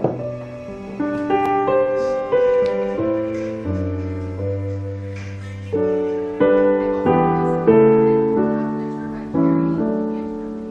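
Background music: gentle piano chords, each struck and left to ring.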